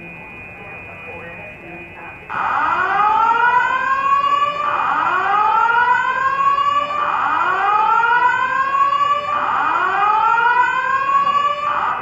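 Building fire alarm sounding a slow whoop tone: four rising sweeps, each a little over two seconds long, starting about two seconds in and stopping just before the end.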